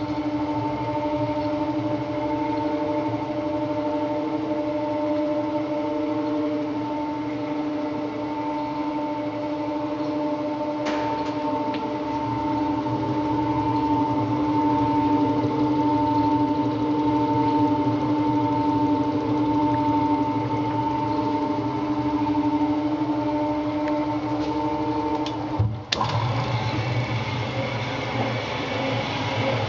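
Diosna S120 Plus paddle mixer running empty: the motor and drive give a steady hum with a whine over it. About 26 seconds in, the sound dips briefly and changes to a deeper, rougher running.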